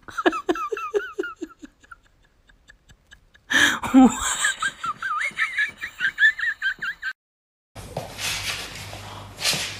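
A person laughing: a string of short falling 'ha' sounds, then after a pause a louder, high-pitched giggling laugh that stops abruptly.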